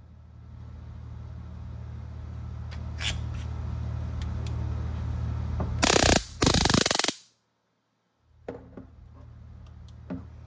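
Stun baton firing twice, about six seconds in: two loud crackling electric arcs of about half a second each across the electrode head. Before and after them come a few light clicks of the metal baton being handled.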